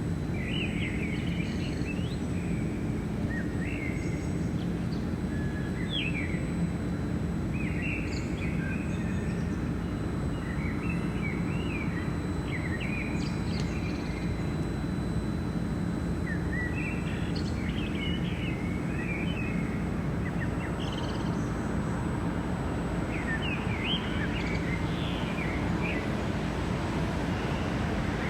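Birds chirping and trilling again and again over a steady low drone of urban machinery hum, with a faint, steady high-pitched whine.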